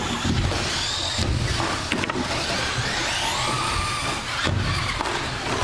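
Electric motors of 1/10-scale RC short-course trucks whining, the pitch gliding up as they accelerate, the clearest rise beginning about halfway through.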